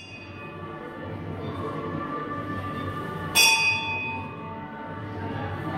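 A metal bell struck about three and a half seconds in, ringing with several steady tones that slowly fade, over the still-sounding ring of a strike just before.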